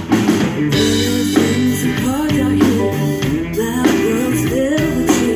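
A live rock band playing: electric guitar over drums and keyboard, with notes bending in pitch and a steady drum beat.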